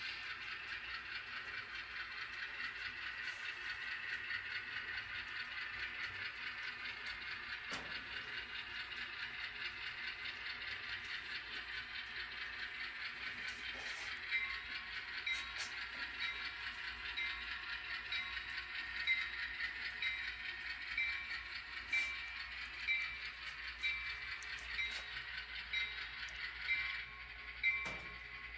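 HO scale Atlas Gold ALCO RS3 model locomotive running slowly under its onboard sound decoder, a steady model diesel sound. From about halfway through, a regular click comes roughly once a second.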